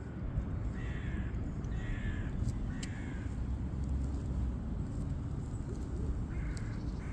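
Seagull calling: three short harsh calls about a second apart, then another near the end, over a steady low rumble.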